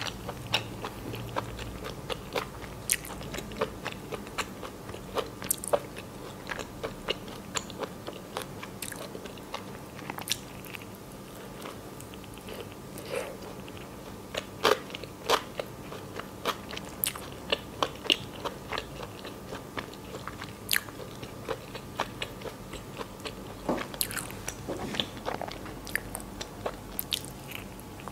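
Close-miked chewing of a soft white-bread chicken-mayonnaise sandwich: a continuous run of short, wet mouth clicks and smacks.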